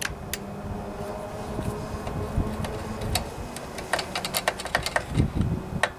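Metal screwdriver clicking and tapping against the carburetor while working the main jet loose: a scatter of sharp ticks, more frequent in the second half, over a steady low hum.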